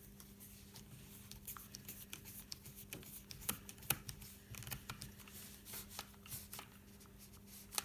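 Small screwdriver and tiny screw clicking and scraping against the plastic hinge parts of a DJI Mavic Pro arm as the screw is fitted and driven in: irregular light clicks, over a faint steady low hum.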